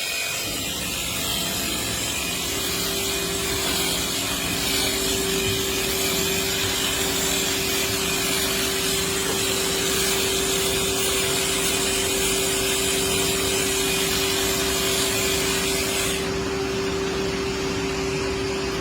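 A machine motor running steadily, a constant hum over a broad hiss; the high hiss drops away about three seconds before the end.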